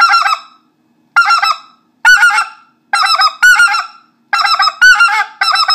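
Specklebelly (white-fronted goose) call by Basin Waterfowl Calls blown in the basic three-note 'tee-hee-hee' call, blown straight through with the fingers down. About eight quick, loud groups of notes in a row, with short gaps between.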